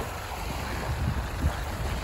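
Wind buffeting the microphone in uneven gusts, over small waves lapping at the shore.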